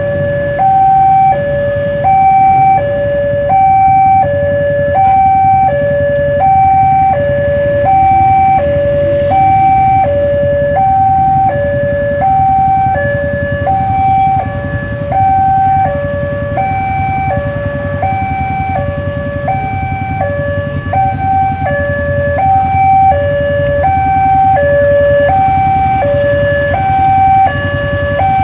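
Railway level-crossing warning alarm sounding while the barrier is down: an electronic two-tone signal alternating between a higher and a lower tone, each held about half a second, repeating without a break.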